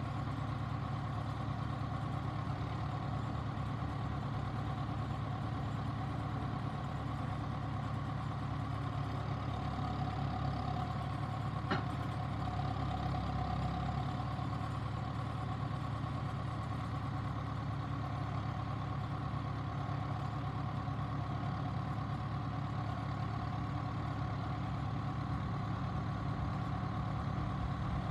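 John Deere 6330 boom-mower tractor's diesel engine idling steadily, with one sharp click about twelve seconds in.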